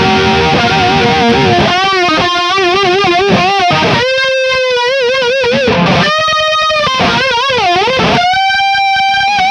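Electric guitar lead played through a Strich Melody Halo analog chorus pedal: long sustained solo notes with wide vibrato and string bends that swoop up and down in pitch, in a few phrases with brief breaks between them.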